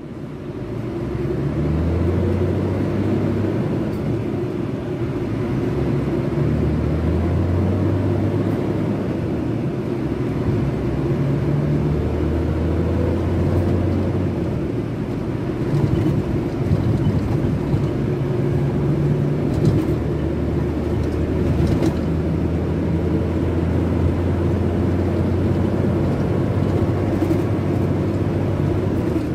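Scania K380 bus's six-cylinder in-line 380 hp diesel engine running as the bus drives, its low note strengthening and changing pitch in stretches every few seconds.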